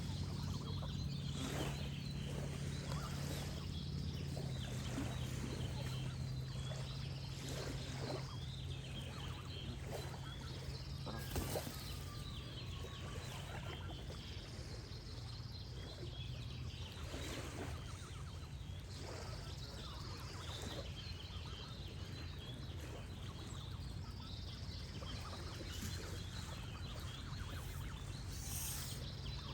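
Geese honking repeatedly over birdsong and a gentle water flow. The loudest honk comes about a third of the way in.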